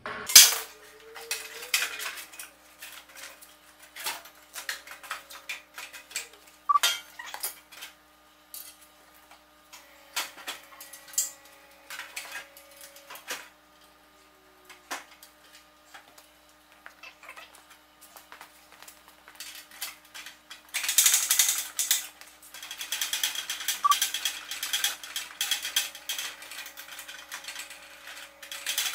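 Metal hand tools clicking and clanking against metal parts in irregular bursts, with a sharp knock right at the start and a denser run of rapid clicking in the last third.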